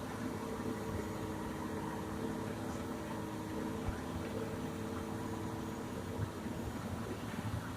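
Heavy diesel engine of quarry machinery running steadily with a low rumble; its steady hum fades about six seconds in.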